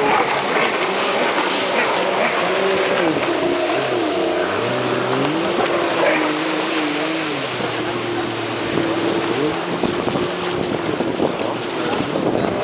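Racing jet ski (personal watercraft) engines running hard around the course, their pitch rising and falling as the riders throttle up and back off through the turns. Several engines are heard at once, at different pitches.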